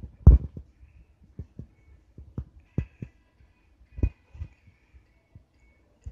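Irregular dull thumps and knocks as kittens land, pounce and scramble on a carpet-covered cat tower while wrestling; the loudest thump comes near the start.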